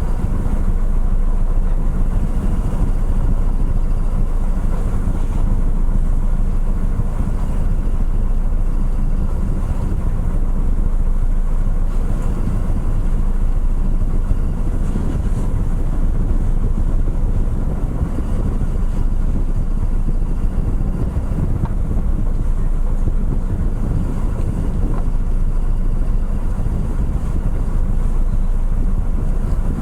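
Steady low drone of a car ferry's engines heard on board while under way, with no breaks or changes.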